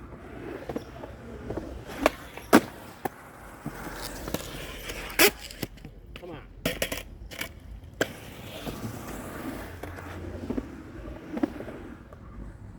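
Skateboard wheels rolling, broken by sharp clacks of the board: the loudest about two and a half seconds in, another around five seconds, a quick run of several near seven seconds, and single ones at eight and near eleven and a half seconds.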